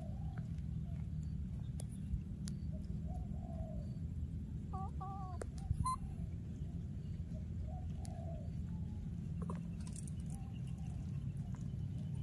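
Baby macaques giving soft, short cooing calls now and then, with a pair of higher, wavering calls about five seconds in. A steady low rumble and a few faint clicks run underneath.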